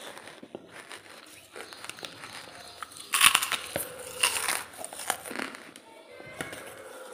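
Thin plastic bag holding lumps of charcoal crinkling and rustling as it is handled, with two loud crackles about 3 and 4 seconds in.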